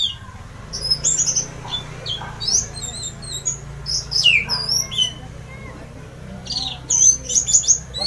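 Orange-headed thrush singing loudly in short phrases of clear whistles and quick sweeping notes, with a pause midway and a fast run of notes near the end, over a low steady hum.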